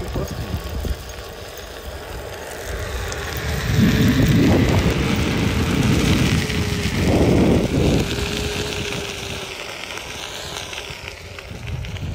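Onewheel electric board rolling along pavement, its hub motor giving a thin steady whine through the middle, over rushing wind noise on the microphone that swells loudest about four and seven seconds in.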